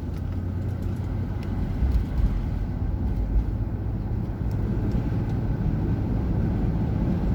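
Car being driven along a road: steady low rumble of tyres and engine.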